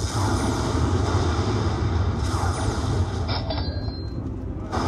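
Lightning Link slot machine counting up a bonus win on its WINNER meter: its rollup sounds play over a steady low background din.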